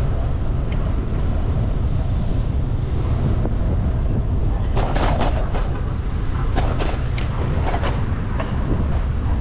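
Wind rumbling on the microphone of a camera on a moving bicycle, with road noise underneath and a few sharp knocks about five and seven seconds in.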